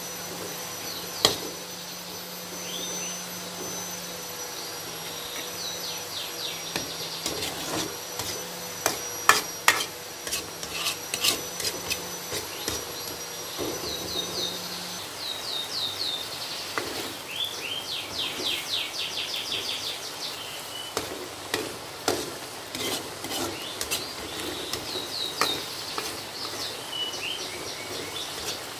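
Metal spatula scraping and clinking against an aluminium wok while sardines and enoki mushrooms are stirred in sauce, in irregular knocks and scrapes. High repeated chirps sound in short clusters in the background.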